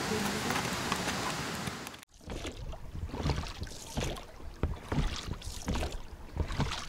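Steady wind hiss on the microphone for about two seconds, then an inflatable boat being rowed: irregular knocks and splashes of the oars working the water.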